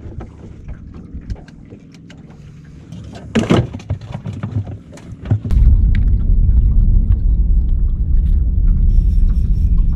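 Wind buffeting the camera microphone: a steady low rumble starts about halfway through and is the loudest thing here. Before it come light knocks and clicks on the boat, with one brief louder sound a few seconds in.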